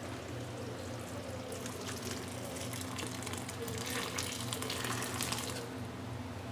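Thick boiled dal pouring and splashing steadily from a pressure cooker pot into a kadhai of cooked sambar vegetables, a little busier through the middle.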